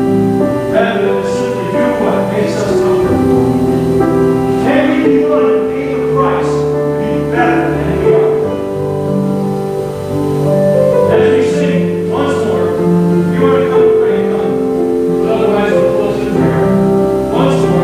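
Live church worship music: a band playing sustained chords with piano and a steady beat, a musical interlude between sung verses.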